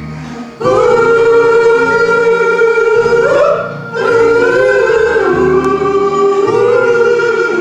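Wordless music between sung verses: long held notes, with a slide up about three seconds in, a brief break, then more held notes.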